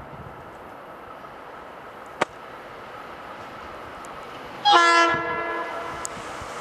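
Horn of an approaching Metro-North electric multiple-unit commuter train: one blast of a few notes sounded together, loudest at its start and fading over about a second, near the end. Under it is the steady low rumble of the oncoming train, with a single sharp click about two seconds in.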